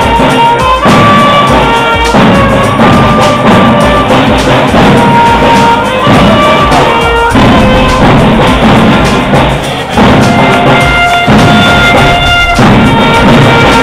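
Music with drums and long held notes, loud throughout with a few brief dips.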